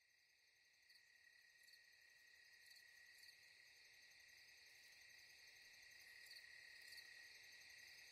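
Faint night-time chorus of crickets: a steady high trill with short chirps every half second or so, fading in slowly.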